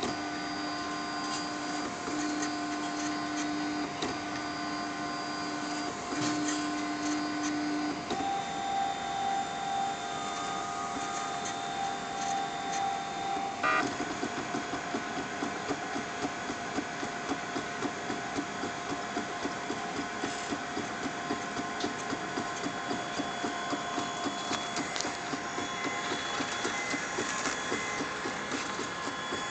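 Ultimaker 3D printer printing, its stepper motors whining at steady pitches that change with each move of the print head. From about halfway through, the motors pulse in a quick, even rhythm of short back-and-forth moves.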